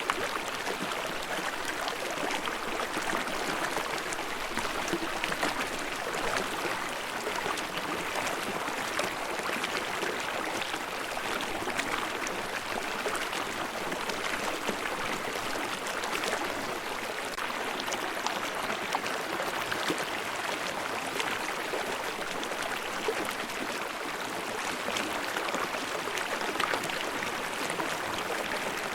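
Forest stream running over small waterfalls: a steady rush of water with babbling and splashing.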